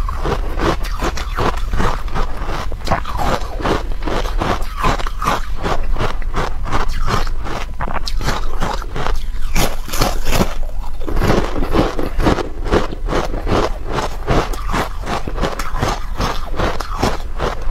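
Carbonated ice coated in matcha powder being bitten and chewed right at a clip-on microphone: a dense, continuous run of crisp crunches and crackles.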